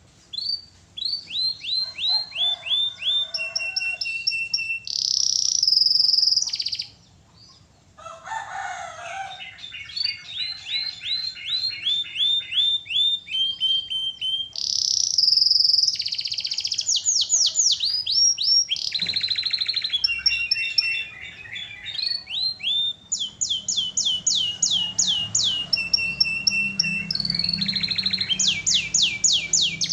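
Domestic canary in full, vigorous song: a long run of fast trills, each a quick series of repeated down-sweeping notes, switching from one trill type to the next, with a brief pause about eight seconds in.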